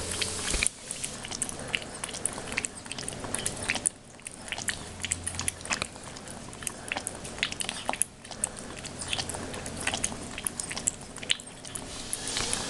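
Ferrets lapping and slurping soup from a bowl: quick, irregular wet licking clicks, several a second, without a break.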